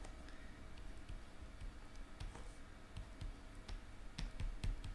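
Faint, irregular light clicks and taps of a stylus on a tablet screen while handwriting, a few sharper taps near the end.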